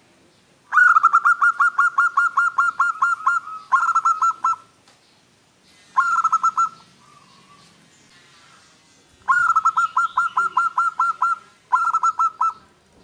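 Zebra dove (local perkutut) singing: five bursts of quick, evenly repeated cooing notes, about five a second. The first and fourth bursts are the longest, two to three seconds each, and short pauses fall between them.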